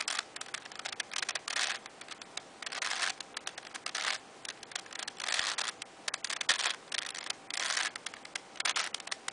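Plastic layers of a 4x4 Rubik's Cube being turned by hand in quick succession: short scraping whirrs and sharp clicks, one turn after another with brief pauses, as a move sequence is performed.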